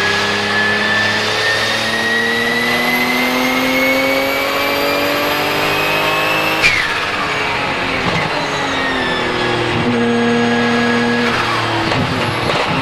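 Porsche 997 GT2 RSR's twin-turbo 3.9-litre flat-six accelerating, its pitch rising steadily with a high turbo whistle for about six and a half seconds. It then lifts off suddenly with a short sharp burst from the blow-off valve, and the pitch falls away. The engine then runs on at lower revs, with its pitch changing a few more times near the end.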